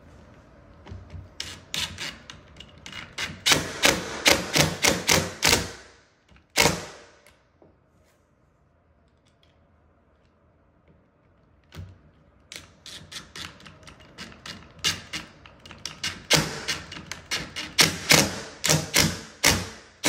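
Cordless driver driving the hinge's original screws into wall anchors set in a stripped-out door jamb. Two runs of rapid, sharp clicks, with a quiet pause of a few seconds between them.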